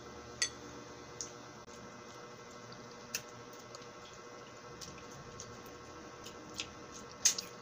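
Sparse wet clicks and smacks of a mouth sucking and chewing a lemon slice close to a clip-on microphone, over a steady low hiss, with a sharper cluster of clicks near the end.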